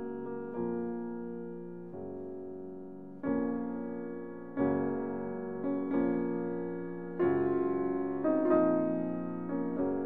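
Slow piano music: chords are struck and left to ring and fade, with a new chord about every second or so.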